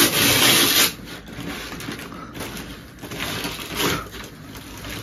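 A brown paper bag and the plastic-wrapped package inside it rustle and crinkle as the package is pulled out. There is a loud crackling burst at the start and another about three seconds in.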